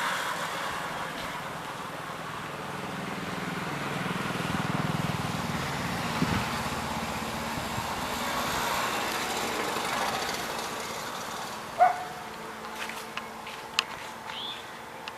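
A motor runs steadily and fades about eleven seconds in, followed by a few sharp knocks and short high chirps.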